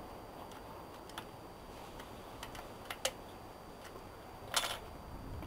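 A few light, sharp clicks and taps, then a short rattle of clicks about four and a half seconds in, as a hand handles the propeller of a small model diesel engine that is not running.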